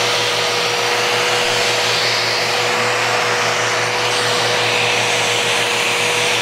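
Festool RO 90 random-orbit sander running steadily with its dust extractor drawing air, sanding the edge of a hardwood slab: an even rushing noise with one steady whine.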